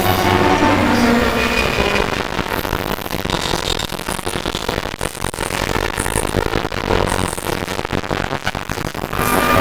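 Experimental harsh-noise and drone music: a dense crackling electronic noise texture over a low droning hum. Layered steady tones fade out about two seconds in, leaving mostly rough noise, and swell back in near the end.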